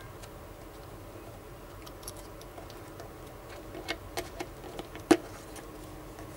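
A small cardboard pen box handled by hand: light scrapes and several soft taps, then one sharp click about five seconds in.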